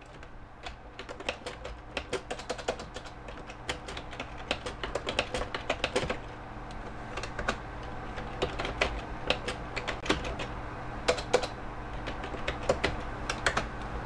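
Typing on a computer keyboard: irregular runs of quick key clicks with short pauses between them, over a steady low hum.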